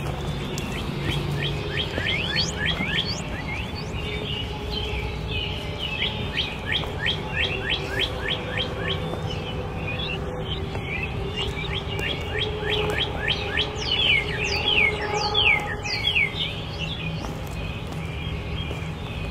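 Wild birds chirping: quick runs of short, high sliding chirps, several a second, loudest in the second half.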